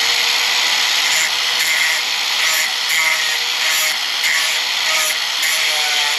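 Handheld power tool running with a steady whine as it grinds a sharpening bevel onto a steel wood-chipper blade. The grinding swells and eases as the tool is worked along the edge.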